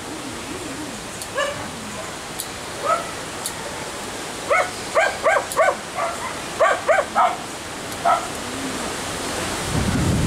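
A dog barking in short, high barks: a few single barks, then a quick run of them in the middle. Near the end comes a low rumble.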